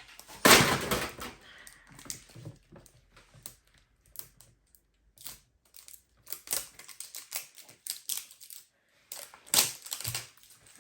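A plastic-wrapped candy box being unwrapped and opened by hand: irregular crinkles, clicks and taps of wrapper and cardboard, with louder rustling bursts about half a second in and again near the end.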